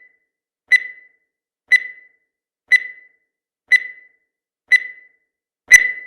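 Countdown timer's electronic beeps: a short, high beep once a second, each the same pitch. Near the end comes one louder, fuller beep as the count reaches zero.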